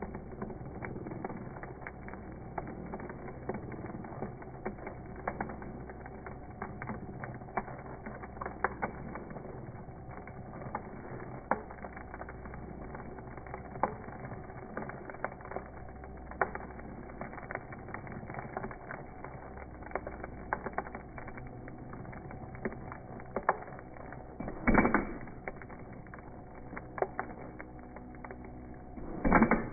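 Impact drill boring into a golf ball, heard slowed down: a low steady whir with many small clicks, and two louder bursts near the end.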